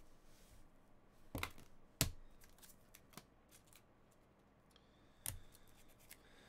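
Hard plastic card cases clacking together as encased trading cards are set down and stacked: sharp clacks about one and a half and two seconds in, a few light ticks, and another clack after about five seconds.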